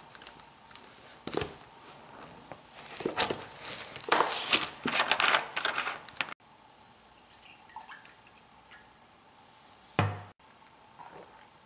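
Soft drink poured from a plastic bottle into a glass, splashing and fizzing for a few seconds. Near the end a single thump, the bottle set down.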